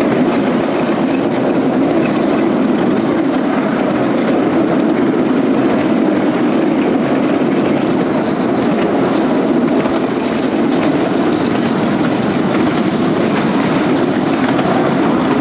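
Passenger carriages of a 10.25-inch gauge miniature railway on the move, heard from on board: a steady rumble of small wheels running on the rails.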